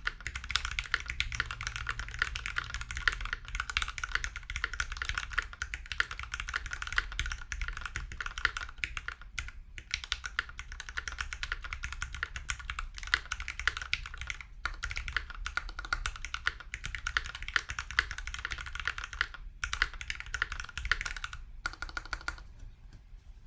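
Fast, continuous typing on a custom mechanical keyboard with lubed Gateron Black Ink linear switches, a brass plate and GMK keycaps. The rapid keystrokes pause briefly a few times and stop about a second before the end.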